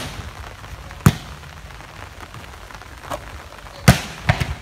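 Sharp slaps of hands striking a volleyball during a rally: one hit at the start, a loud one about a second in, and a quick run of hits near the end as a player attacks at the net, over a steady hiss.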